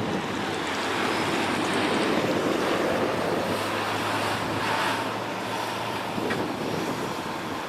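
Road traffic, vehicles passing with tyre and engine noise that swells and eases, and wind rumbling on the microphone.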